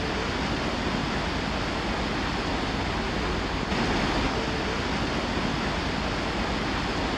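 Steady rushing of wind and sea on a moving high-speed ferry, slightly louder and brighter about three and a half seconds in.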